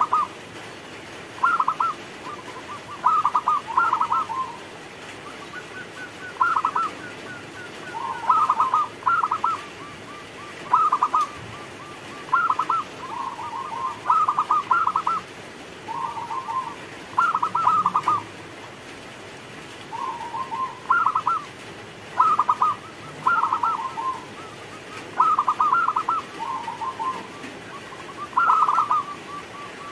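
Zebra dove (perkutut) singing its staccato cooing song over and over: short bursts of quick rolling coos, often stepping from a higher note to a lower one, repeating every second or two with brief pauses.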